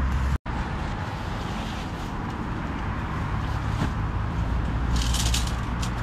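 Steady road traffic from cars going round the roundabout: a constant low rumble. About five seconds in comes crisp rustling as a camouflage tent is pulled out of its bag.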